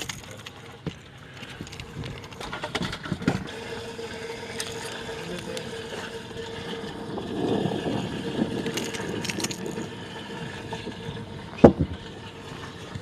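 Knocks, clicks and bumps on a bass boat while a freshly caught white bass is handled at the boat, with a steady hum through the middle. A single sharp knock near the end is the loudest sound.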